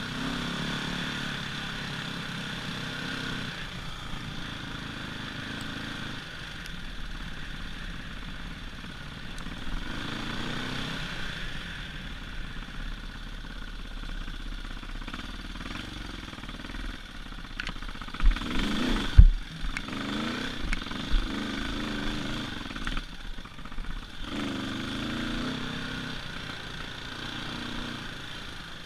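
Husqvarna TE450 four-stroke single-cylinder dirt bike engine revving up and down while being ridden, with a few loud thumps about two-thirds of the way through.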